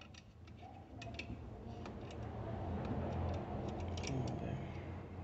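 Small scattered clicks and scrapes as fingers turn a hex-head bolt with its washers into a metal windshield bracket, over a low rumble of handling noise that swells in the middle.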